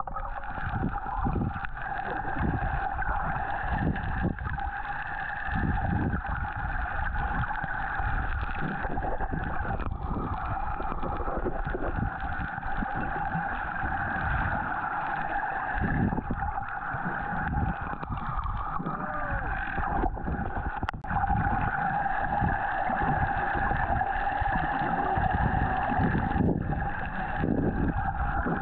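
Muffled underwater sound: a steady motor hum from a boat engine heard through the water, over an uneven low rumble of moving water.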